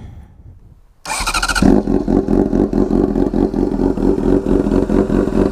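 Honda Hornet CB600F inline-four engine with a megaphone exhaust starting about a second in, then running at a steady, loud idle.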